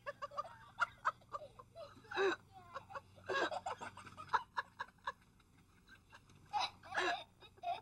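A young child's high-pitched voice making short vocal sounds and laughs, four or so brief bursts, with light clicks and taps in between.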